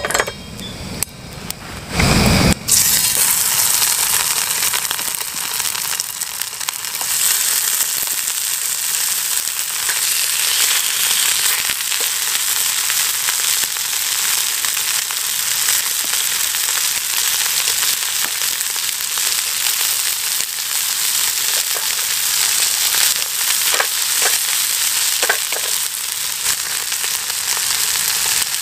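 Thick slices of pork frying in hot oil in a steel pan on a canister gas stove. The steady sizzle starts suddenly about two and a half seconds in, and there are a few light clicks near the end.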